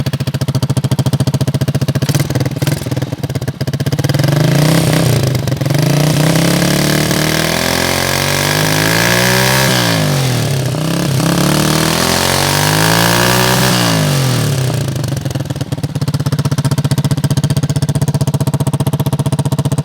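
Carbureted Honda CG motorcycle's single-cylinder four-stroke engine running in neutral with a loud, fast exhaust beat. It is revved up and down several times between about 4 and 14 seconds in, the pitch rising and falling with each blip, then drops back to a steady idle.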